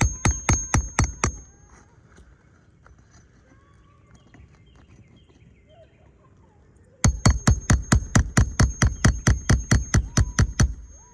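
Rapid, evenly spaced hammer strikes on a roof during a shingle repair, about four to five a second, each with a faint metallic ring. One run stops about a second in; a second, longer run starts around seven seconds in and goes on almost to the end, with birds chirping faintly in the pause.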